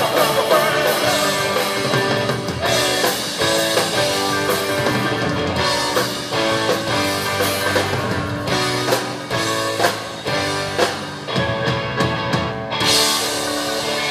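Live rock band playing loud through the festival PA: electric guitars, drum kit and a singing voice, with a burst of crashing cymbal near the end.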